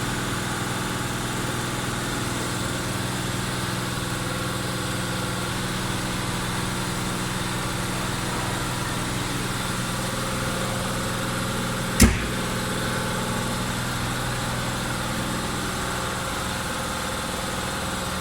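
2011 Nissan Altima 2.5 S's four-cylinder engine idling steadily, with a single sharp knock about twelve seconds in.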